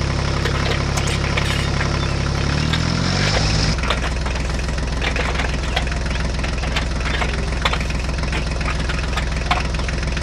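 Tractor engine sound effect idling with a steady low diesel-like running note, laid over a plastic toy tractor. About three seconds in the pitch slides and settles into a different steady idle, with light clicks scattered throughout.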